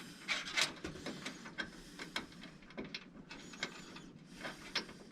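Irregular small clicks, taps and rustles of hands handling small computer parts and cables, with no steady machine sound.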